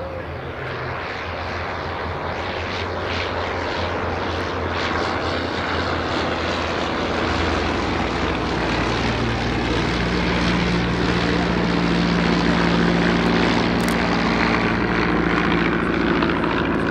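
Piston engines and propellers of First World War fighter planes in display flight, a steady drone that grows louder as they come nearer, loudest about three quarters of the way through.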